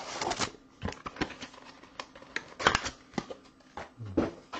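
Baseball cards being handled and shuffled by hand: scattered light clicks and rustles of card stock, with a short cluster of louder clicks partway through.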